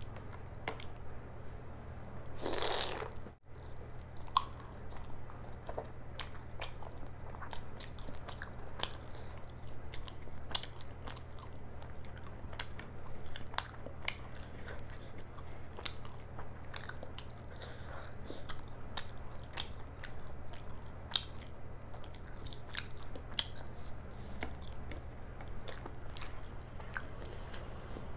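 Close-miked eating: chewing and biting, with many small sharp clicks and light crunches throughout. A louder rushing burst comes about two and a half seconds in. A steady low hum runs underneath.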